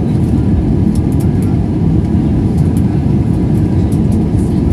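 Steady cabin roar of an Airbus A320 climbing after takeoff: a loud, even, low rumble of the jet engines and airflow heard from a window seat inside the cabin.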